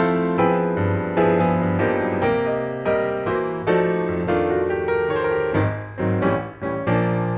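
Background music: piano notes played at a gentle pace, each one struck and left to ring.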